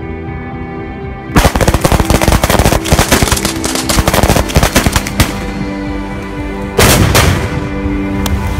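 A rapid string of sharp cracks for about four seconds, then, about a second and a half later, one heavy blast from four 125 g flash-powder bombs going off together close by. Background music plays under it.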